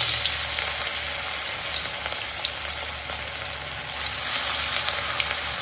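Masala-coated rohu fish pieces sizzling in smoking-hot mustard oil as they are slipped in one by one, with small crackles; the sizzle is loudest as the first piece goes in and swells again about four seconds in as another piece is added.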